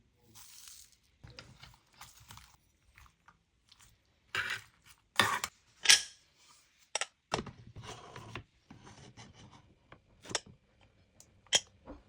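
Kitchen food-preparation handling sounds: an irregular string of rustles, crunches and sharp knocks, loudest about five to six seconds in.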